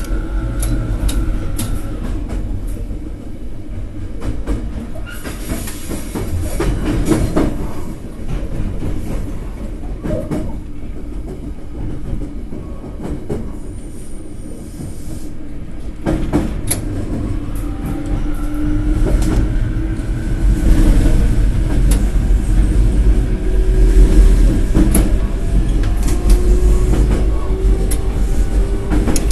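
Cab-area interior of a BEC819 DENCHA battery-electric train running: low running rumble with a traction-motor whine that rises in pitch over the last dozen seconds or so as the train picks up speed. Through it come repeated sharp clicks, the 'gachi, gachi' of the automatic train operation (ATO) unit stepping the control notches.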